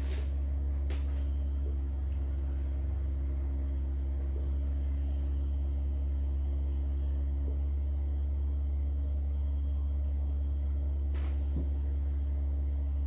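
Subwoofer playing a steady low tone that sets the water in a dish on its cone into rippling standing-wave patterns.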